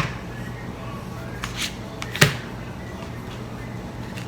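Tarot cards being handled and laid down on a table: a few sharp snaps and taps, the loudest a little after two seconds in, over a low steady hum.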